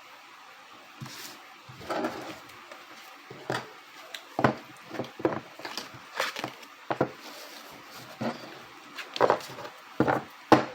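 Cards being handled, gathered and set down on a table: irregular light taps and knocks, with a short sliding rub about two seconds in.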